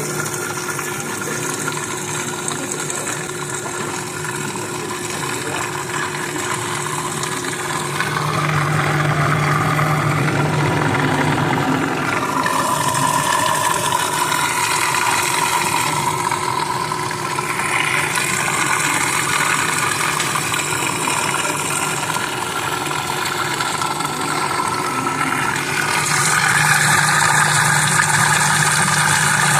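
Electric food processor motor running steadily, whipping egg yolks as melted butter is worked in to emulsify hollandaise sauce; its hum shifts in tone a few times.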